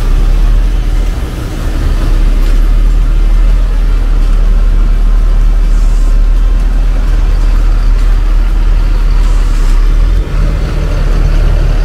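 Diesel engine of a Mercedes-Benz OH 1626 coach running loud and close as the bus pulls slowly past. The engine note dips briefly about ten seconds in, then carries on with a steadier hum.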